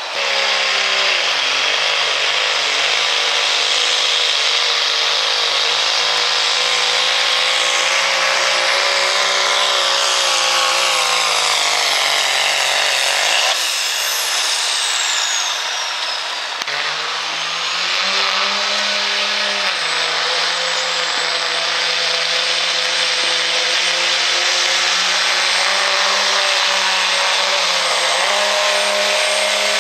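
Turbocharged diesel pickup trucks at full throttle pulling a weight-transfer sled, the engine running hard under a loud high turbo whine. The engine note steps down and back up several times during the pull. There is a short break about halfway, where the whine falls away, and then another truck's pull starts.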